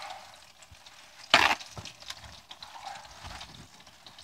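Dredged chicken breasts frying in olive oil in a skillet: a faint, steady sizzle with small crackles. About a second and a half in there is one short, sharp clatter, the loudest sound here.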